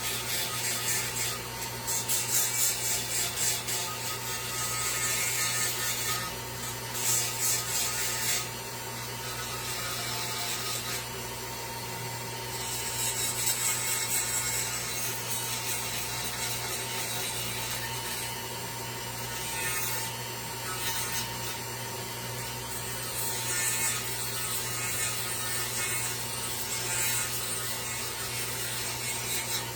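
A shaping tool scraping on wood in bouts of quick strokes with short pauses, rounding over the edges of a wooden sign. A steady hum runs underneath.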